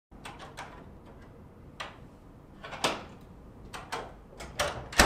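A series of sharp knocks and clicks at irregular intervals, some in quick pairs or triples, getting louder, the loudest right at the end.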